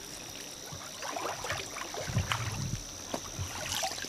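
Shallow muddy water sloshing and swishing around a wader's legs and a bamboo fish-cover basket being worked in it, with scattered soft knocks and low thuds.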